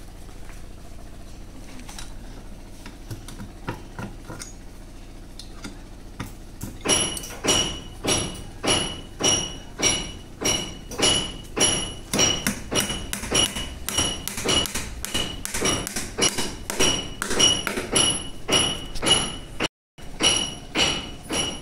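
Steel claw hammer driving nails through a wooden scaffold piece into a concrete block wall. After several quiet seconds, a long run of steady blows starts, each with a high metallic ring.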